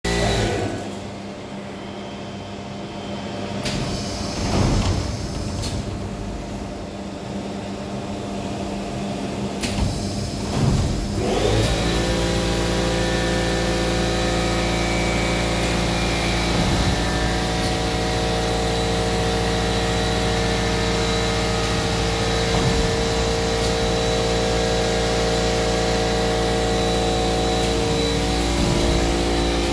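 DPF cleaning machine at work, spraying inside its steel cleaning chamber. It starts with quieter, uneven spraying and two surges, then about eleven seconds in the machine comes up to a loud, steady running sound with a hum and hiss that holds.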